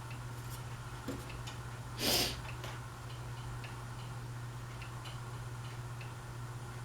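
Harbor Breeze Pulsar ceiling fan running on its low speed: a steady low hum with faint ticking. About two seconds in there is a brief rush of noise.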